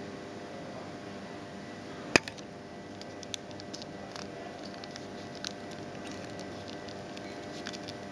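Paper receipt being folded and creased by hand, with short crisp clicks of the paper, the sharpest and loudest about two seconds in, over a steady background hum.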